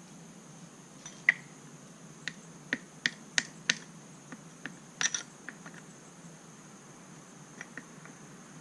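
Sharp clicks and taps of an ECHO Speed Feed 400 trimmer head and its adapter being worked by hand to push the old adapter out. The loudest click comes about a second in, then several more follow over the next few seconds, with a brief cluster around the middle and a few faint ticks near the end.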